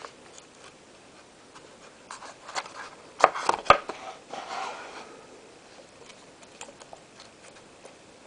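Hands handling and opening a trading-card box: scattered light clicks and taps, a cluster of sharper knocks about three to four seconds in, then a short rustling scrape.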